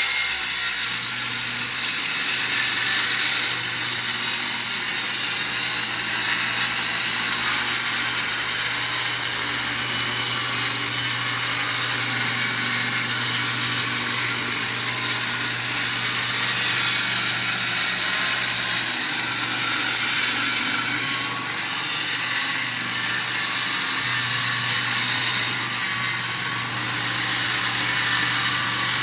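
Electric circular saw running and cutting timber lengthwise with a steady motor hum and hiss, dipping briefly about 21 seconds in.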